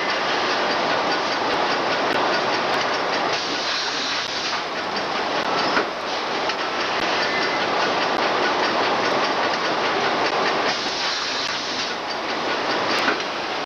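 Steady, loud mechanical din of forge-shop machinery in a shovel plant, including flywheel-driven presses working hot steel, with a couple of sharper knocks, about six seconds in and near the end.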